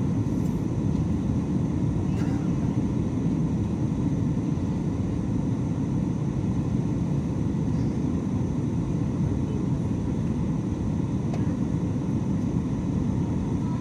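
Steady cabin noise of a jet airliner in flight, heard from inside the cabin: a constant low drone of engines and rushing air.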